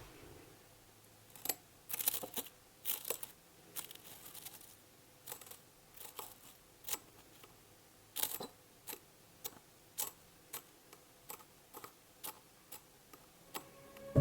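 Close-up upholstery handwork on a chair's metal seat springs: many short, irregular sharp clicks and light taps, some in quick pairs.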